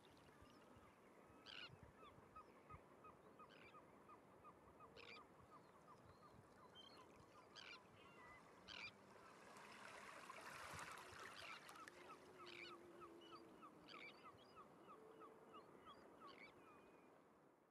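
Faint calls of birds on the shore: a long, even series of short notes, about three a second, with scattered sharper, higher calls. Beneath them is a soft hiss of calm sea and wind, which swells briefly around the middle.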